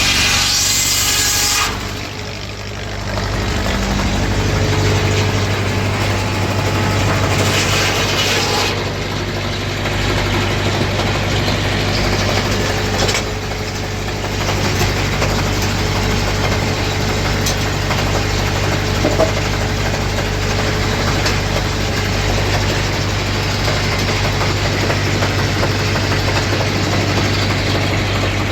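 A 1931 Ford Model A four-cylinder engine runs steadily under a Hoof governor, driving a flat-belt circular sawmill. A high whine is heard in the first two seconds and again briefly about eight seconds in, typical of the circular saw blade cutting.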